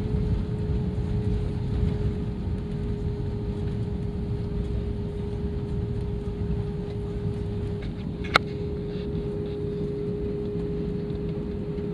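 Airbus A320-family airliner cabin noise on the landing rollout: a steady engine and airflow rumble with a constant hum. A single sharp click comes about eight seconds in.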